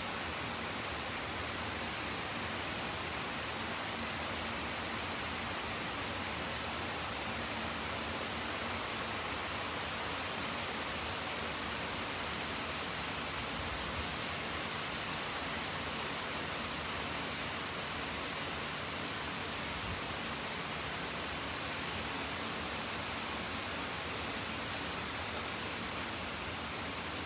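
Heavy thunderstorm rain falling steadily, an even hiss.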